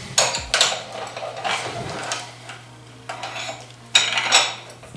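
Steel vice grips and a bench vise being handled on a steel welding table: a run of sharp metal clinks and knocks, the loudest about four seconds in.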